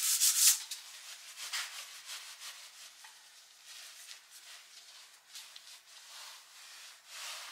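Abrasive paper rubbed in rapid strokes over the metal barrel of a Volvo Penta 2003D marine heat exchanger, taking off the last of the old paint. The sanding stops about half a second in, followed by softer, scattered rubbing as the barrel is wiped down with a cloth.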